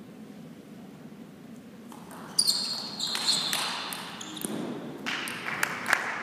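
Table tennis rally: sharp clicks of the ball off rackets and table, starting with a loud hit a little over two seconds in and coming faster near the end, with the players' shoes scuffing and squeaking on the hall floor between hits.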